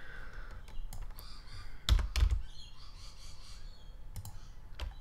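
Scattered clicks of a computer keyboard and mouse, with two louder knocks close together about two seconds in.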